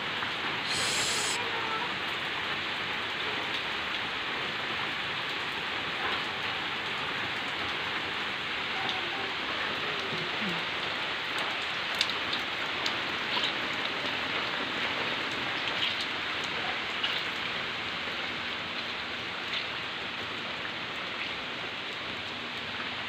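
Rain falling steadily on concrete paving, grass and plants, a constant hiss with scattered louder drops.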